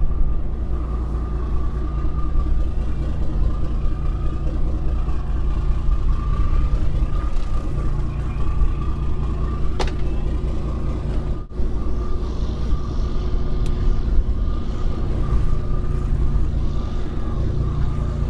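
Fishing boat's engine running steadily: a low rumble with a steady hum over it.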